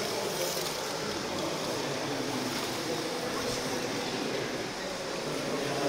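Slot cars lapping a plastic track: a steady, even rushing whir of small electric motors and tyres on the track surface, heard against the open acoustics of a large hall.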